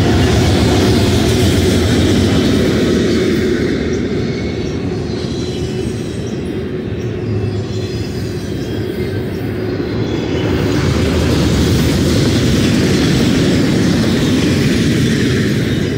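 Freight train passing at speed: the last of its diesel locomotives goes by at the start, then double-stack container well cars roll past with a steady, loud wheel rumble and clatter. It eases slightly in the middle and swells again after about eleven seconds.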